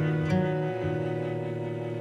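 Background music: sustained string notes that change about a third of a second in and again near the one-second mark, then slowly fade.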